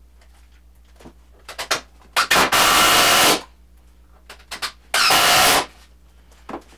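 A power drill-driver runs in two short bursts while driving screws into wood: the first burst about a second long, the second shorter. Light knocks and clicks of the wood being handled come between the bursts.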